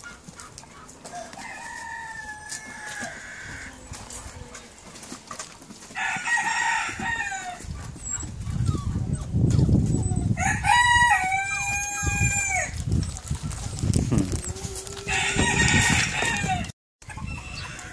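Roosters crowing several times, the longest and loudest crow about eleven seconds in, with a low rumble underneath.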